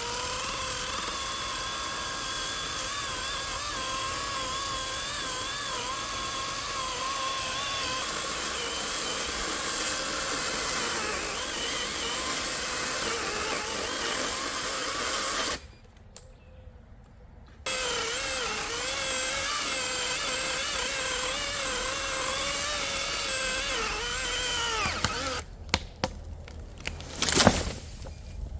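Gas chainsaw running at high revs, its whine wavering in pitch as it cuts into wood. It cuts out for a couple of seconds about halfway through, runs again, then dies away near the end amid a few sharp knocks.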